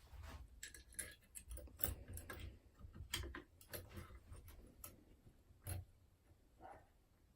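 Faint, irregular metal clicks and taps of a multi-gauge curtain pick and tension tool being handled and fitted into a 5-lever Union Strongbolt mortice lock.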